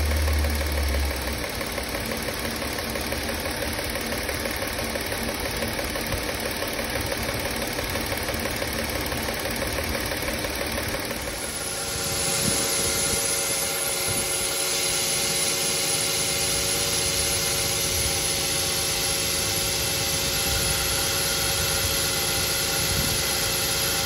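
Car engine idling steadily with a newly fitted poly-V serpentine drive belt running on its pulleys. There is a brief low rumble at the very start, and the steady sound shifts slightly about halfway through.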